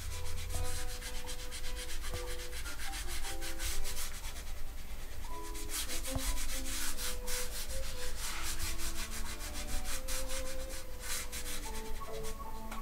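Rapid scratchy rubbing strokes, several a second, coming in runs and loudest about halfway through and again near the end, over faint background music.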